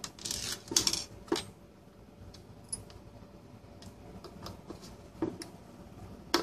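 Handling noise from a Kingwin EZ-Dock's plastic enclosure on a wooden desk: scraping and rustling in the first second, then scattered light clicks and taps, with a sharp click near the end as a small screwdriver is set into a screw in the base.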